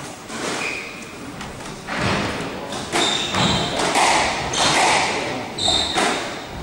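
A squash rally: the ball is struck by racquets and thuds off the walls in a run of sharp hits, with short high squeaks from the players' shoes on the wooden court floor.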